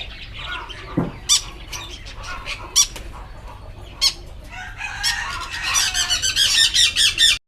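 Caged pet-shop birds calling: a few sharp single calls spaced over several seconds, then a dense burst of rapid chirping from many birds near the end that cuts off abruptly.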